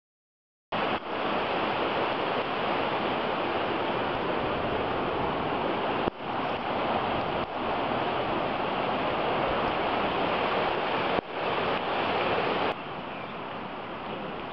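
Rushing, muddy floodwater of a small brook that has burst its banks after a cloudburst: a steady, even rush of water. It starts about a second in, breaks off briefly a few times, and falls to a quieter rush about two seconds before the end.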